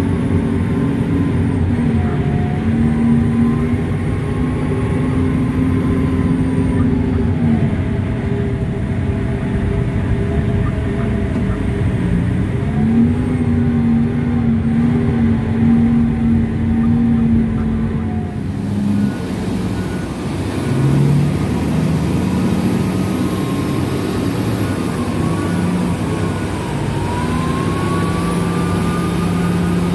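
Komatsu HD785-7 haul truck's diesel engine heard from inside the cab, running under way with its engine speed stepping up and down. About two-thirds through, the sound changes abruptly to a haul truck's diesel engine heard from outside as the truck drives.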